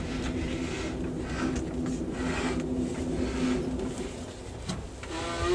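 Running noise inside an Amtrak Superliner passenger car on the move: a steady low hum and rumble from wheels on rail, with hissing rattles that come and go every second or so. A short rising voice-like sound comes in right at the end.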